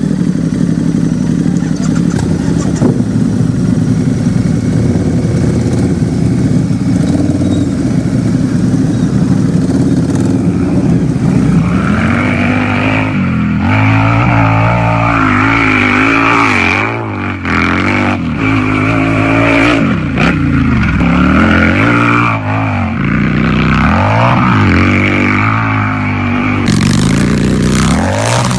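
Motorcycle engine running at a steady, rough idle. From about twelve seconds in it is revved again and again, its pitch rising and falling with each blip of the throttle.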